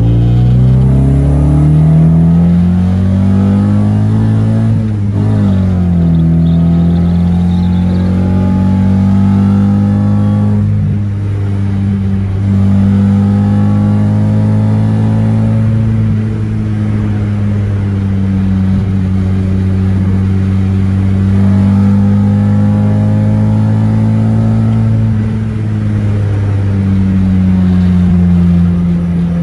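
Toyota 86 engine heard from inside the car, revving up through a gear, then shifting about five seconds in and running on steadily at cruising speed, with small changes in revs.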